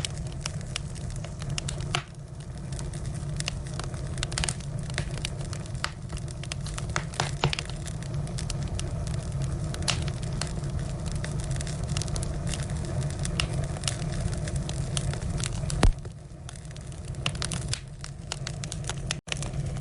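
Burning firewood crackling, with many short sharp pops over a steady low rumble of the flames, and one louder pop about 16 seconds in.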